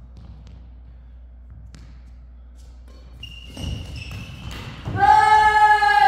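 Badminton doubles rally on an indoor court: a few faint racket taps on the shuttle, then thudding footwork from about three and a half seconds in. About five seconds in, a loud, high, drawn-out squeal of court shoes on the sports floor.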